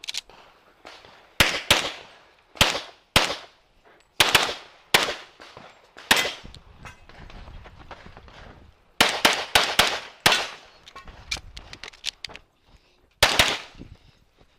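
Competition pistol fired in quick pairs and short strings, sharp shots with gaps of a second or more between strings, through a timed stage that began at the start beep.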